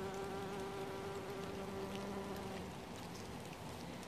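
Bumblebee buzzing in flight around marigold flowers, a steady hum that fades out after about two and a half seconds, over scattered ticks of raindrops.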